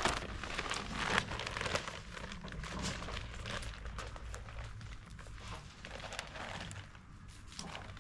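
A plastic bag rustling and crinkling as it is carried, with footsteps on grass; the crinkling is loudest in the first couple of seconds, then thins out.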